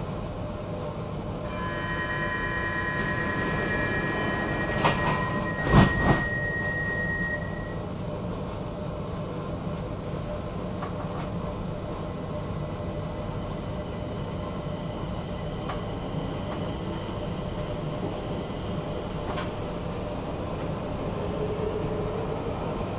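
Stockholm metro train running, a steady rumble of wheels on rails. A few seconds in, a high whine with several pitches sounds for about six seconds, and a few sharp clacks come around the middle of it.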